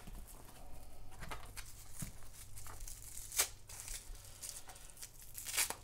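Cardboard packing boards from a mailer being handled and pulled apart by hand: faint tearing and rustling, with a few sharp clicks, the loudest about three and a half seconds in.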